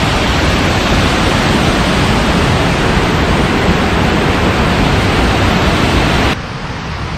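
Water pouring down a dam's concrete spillway and churning into the river below: a steady, loud rushing. About six seconds in it drops suddenly to a quieter rush.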